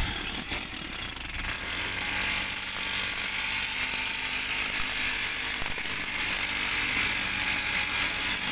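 Handheld electric demolition hammer chipping steadily at rock and concrete, a fast continuous mechanical chatter.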